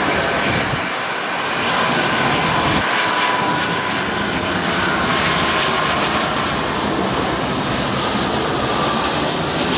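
Twin jet engines of a Boeing 757 freighter on landing approach, a steady loud rushing noise with a faint high whine that slowly drops in pitch as the aircraft comes closer.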